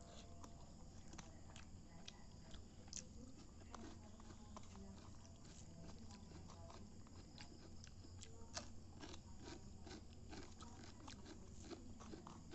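Faint eating sounds from rice being eaten by hand off a steel plate: scattered soft clicks and smacks, over a low steady hum.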